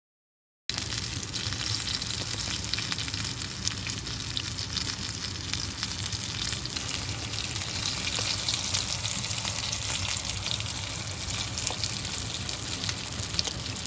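Fish frying in hot oil: a steady, dense sizzle full of fine crackles and pops, starting abruptly about a second in.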